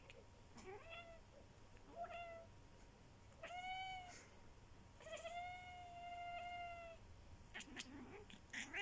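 Domestic cat grumbling in a run of four meows, the first two short, the last drawn out for about two seconds. This is a cat's scolding at a person's sneezing.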